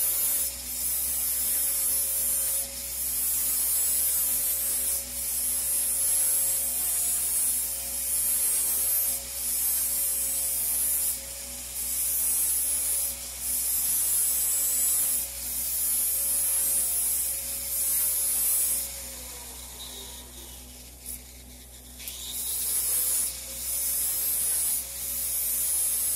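GTAW (TIG) welding arc hissing steadily over a welding machine's hum during a downhill root pass across an oversized gap. The hiss breaks off briefly every few seconds and drops away for about three seconds late on before picking up again.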